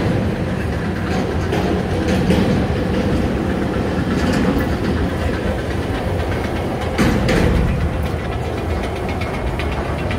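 Loaded flatcars of a rail train carrying long welded rail rolling past: a steady rumble of wheels on track with clickety-clack clatter, and one sharp clank about seven seconds in.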